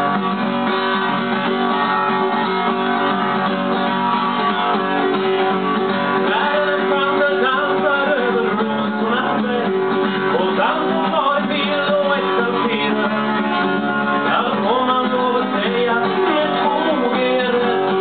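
Acoustic guitar strummed and picked in a blues style, with a man's voice singing along from about six seconds in.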